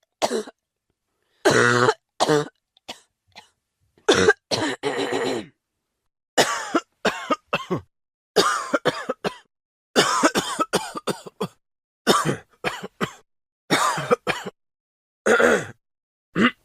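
A person coughing over and over: short coughs in fits of several at a time, with brief silent pauses between the fits.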